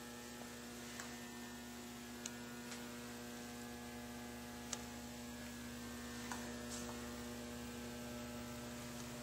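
Steady electrical mains hum, with a few short faint clicks or taps scattered through it, the sharpest about halfway through.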